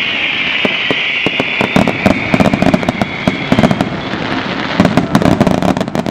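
Display fireworks going off: a high hiss that fades over the first three seconds, then dense rapid crackling and sharp bangs from about two seconds in.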